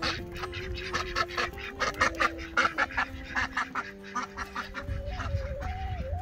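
Runner ducks quacking, a quick run of short, clipped calls several a second that keeps going throughout.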